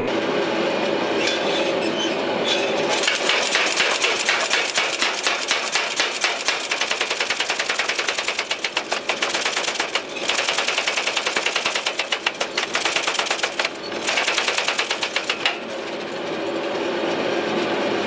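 Power hammer rapidly striking a glowing forge-welded steel-cable billet, many blows a second. There are two short breaks in the middle, and the hammering stops near the end.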